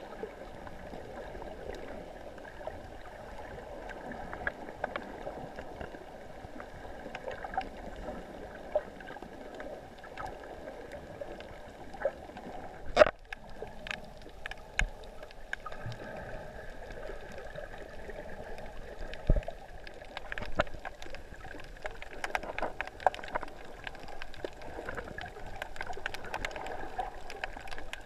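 Underwater ambience picked up by a camera in a waterproof housing: a steady muffled water noise with scattered small clicks and knocks, and one sharp knock about thirteen seconds in.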